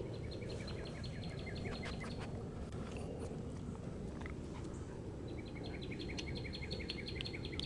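A songbird singing a fast run of evenly repeated chirps, about eight a second: one run at the start lasting about two seconds, and another from about five seconds in. Under it a steady low outdoor background hum.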